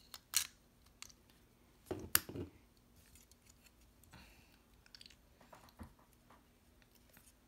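Plastic Lego bricks being handled and pressed together, giving a few sharp clicks. The loudest comes about two seconds in, followed by quieter scattered ticks.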